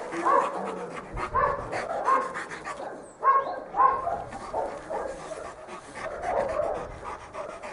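Dog making a series of short, pitched vocal calls, about one every half second to second, louder in the first half.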